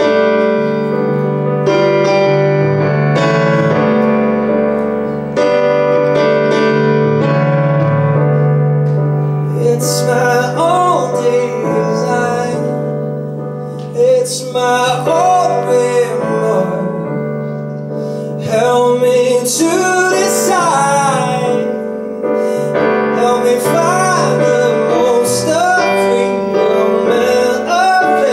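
Live piano music: sustained chords alone at first, with a voice singing a melody over the piano from about ten seconds in.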